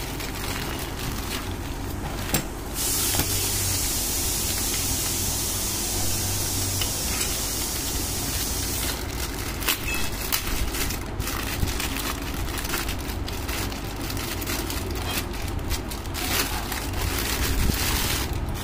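Clear plastic packaging bag crinkling and rustling in the hands as a metal curtain bracket is worked out of it, many sharp crackles throughout, with a steady hiss from about three to nine seconds in.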